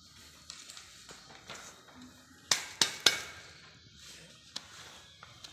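Hand rubber stamp knocked down onto papers lying on a woven floor mat: three sharp thuds about a third of a second apart, a little past halfway, with lighter clicks and paper rustling around them.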